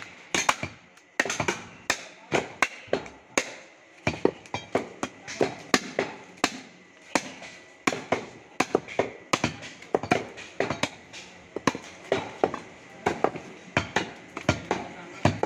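Heavy butcher's cleaver chopping through beef ribs, a steady run of sharp chops, roughly two a second.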